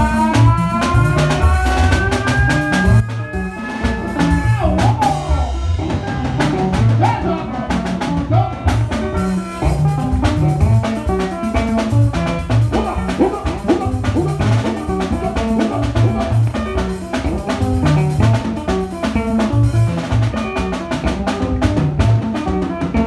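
Acoustic drum kit played with sticks: a steady groove of kick drum, snare and cymbal strokes. For the first four seconds or so, a held pitched note from another instrument rises slowly above the drums.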